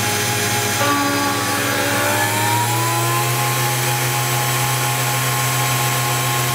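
ProLight benchtop CNC mill running as its end mill cuts machinable wax, a steady motor hum with a whine over it. The whine rises in pitch from about a second in and settles steady after about three seconds, as a speed override is turned up.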